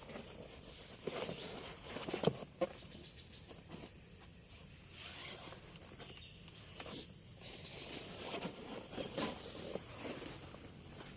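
Steady high-pitched drone of tropical forest insects, with scattered short knocks and rustles a few times.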